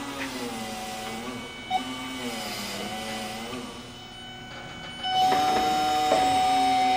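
Forklift running, its motor whine gliding up and down in pitch as it maneuvers; about five seconds in, a louder, steady high whine sets in.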